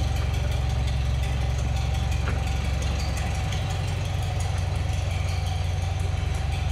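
An engine idling steadily, with an even low pulsing drone and a thin steady whine above it.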